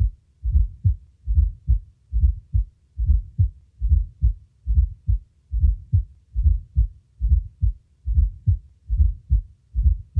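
Heart sounds with a fourth heart sound (S4, atrial gallop): a low sound just before each first heart sound, then the second sound, repeating steadily about once every 0.8 seconds. The S4 comes from the atria contracting into a ventricle of decreased compliance.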